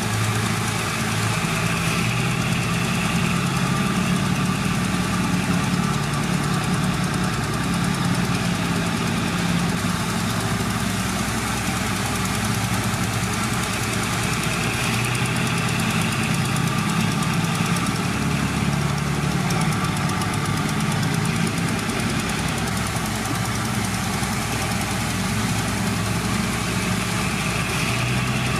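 Heavy diesel engine of earthmoving machinery running steadily, its low engine tone holding even, with a higher note that swells and fades a few times.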